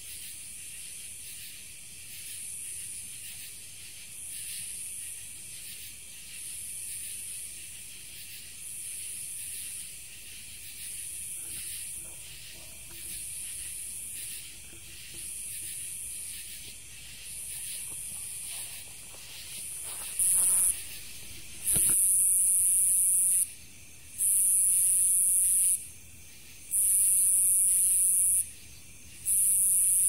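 High-pitched insect buzzing that swells and fades about every two seconds. About two-thirds of the way through, a sharp click comes, and then the buzzing is louder, in longer pulses with short gaps between them.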